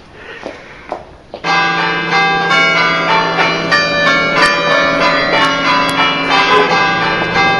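Church bells ringing a festive peal: many bells struck over and over with overlapping, lingering tones, starting suddenly about a second and a half in.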